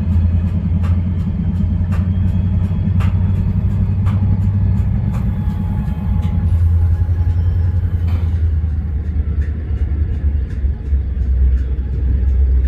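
GE Evolution-series diesel locomotives idling with a deep, steady rumble and a regular knocking on top of it. The low part of the sound thins out a little past halfway.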